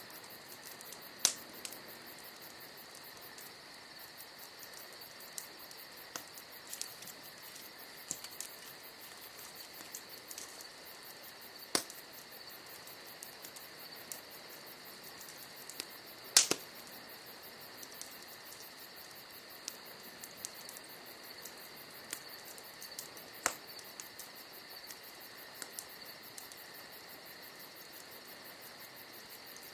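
Wood campfire crackling, with scattered sharp pops from burning logs, a few of them standing out, the loudest just past halfway. Crickets chirring steadily behind it.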